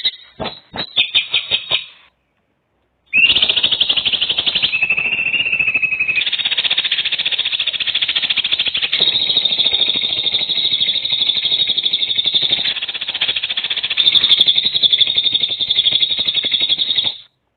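A bird calling in a fast, rattling trill of rapid pulses. A short stuttering burst breaks off, and after a second of silence a long unbroken trill runs on and stops abruptly near the end.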